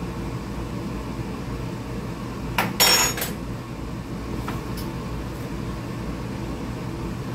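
A metal spoon clanks once against the cooking pot with a brief ring, about three seconds in, over a steady low hum in the room; a faint click follows a little later.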